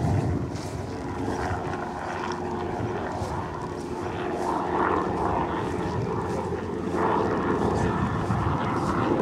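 A steady engine drone with a low hum, running evenly throughout.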